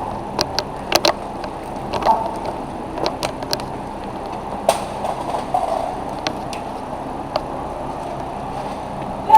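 Scattered sharp pops of airsoft guns firing, single shots and quick pairs at irregular intervals, over a steady rushing background noise.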